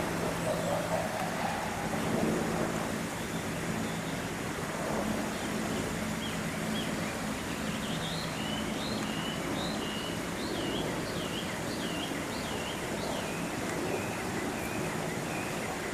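Outdoor ambience with a steady rushing background and a low hum in the first few seconds. A bird calls in a quick series of repeated high notes from about six seconds in until near the end.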